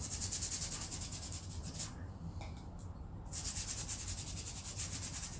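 A stiff scrubbing brush scrubbing a motorcycle roller chain wet with thinners, in quick back-and-forth strokes. The scrubbing pauses for about a second about two seconds in, then resumes.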